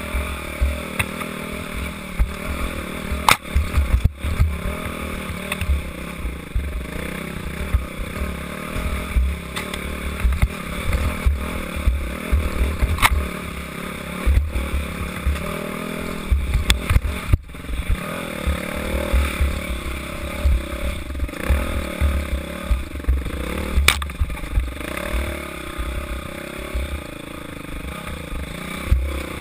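Dirt bike engine running hard and revving up and down, with heavy wind buffeting on the microphone. Several sharp clattering knocks come through as the bike rattles over bumps.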